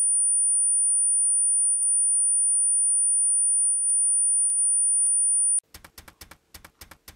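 A loud, steady, very high-pitched electronic tone, a single pure whine held for over five seconds and then cut off sharply. It is followed by a quick, uneven run of about ten dry clicks.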